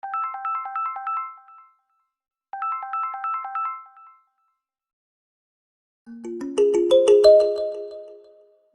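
Samsung Galaxy A56/A36 ringtones: a short, quick, high-pitched melodic phrase plays twice with a brief gap between. After a pause of about two seconds, a different, lower and louder ringtone melody with rising notes begins near the end.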